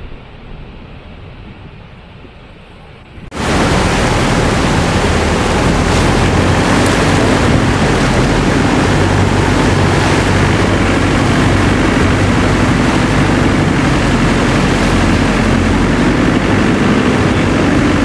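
Large waterfall: a steady rush of falling and churning water. It is moderate at first, then after a cut about three seconds in it becomes much louder and fuller, heard from close below the falls.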